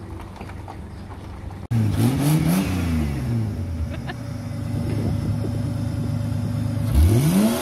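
Race car engine running with its bonnet up, revved in blips: the revs rise and fall around two seconds in, hold steady, then rise sharply again near the end. Before it, a steady low hum.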